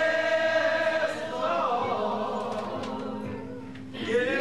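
Slow sung melody with long held notes, each phrase sliding up into its first note; a new phrase begins near the end.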